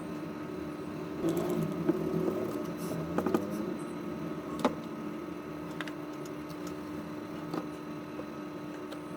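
Steady electrical hum of workbench equipment, with a few sharp clicks of small tools against the board, clustered in the first few seconds and again about halfway through.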